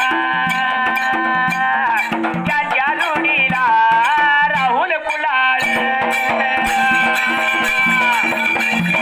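Folk music: a melody of held notes that slide between pitches, over a steady drum beat. The accompaniment fills out about five and a half seconds in.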